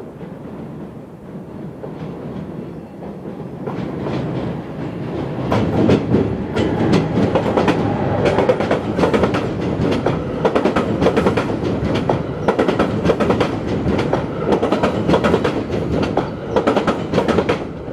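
AMT commuter train's bilevel passenger coaches passing close by, wheels clattering over the rail joints. The sound builds over the first several seconds into a loud, dense run of clicks and clacks.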